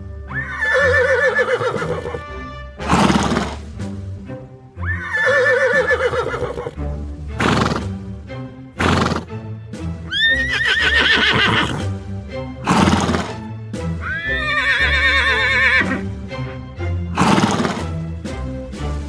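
A horse whinnying four times, each call wavering and trembling in pitch, with short noisy bursts between the calls, over background music.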